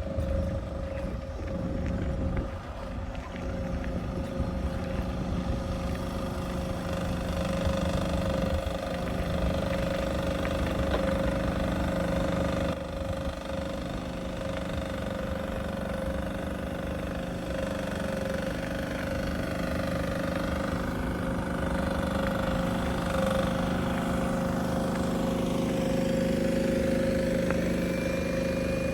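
Steady engine hum with a constant whining tone, holding even throughout.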